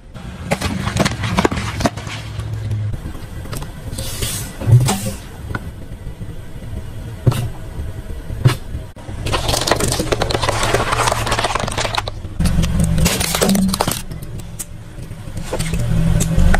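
A car tyre rolling over objects and crushing them: crunching and cracking with a few sharp pops, over the low sound of the car itself.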